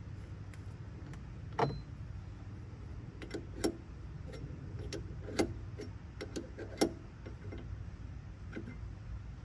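Irregular sharp clicks and knocks, about seven of them, as a hand works a rubber vent hose onto its fitting in the engine bay, over a steady low rumble.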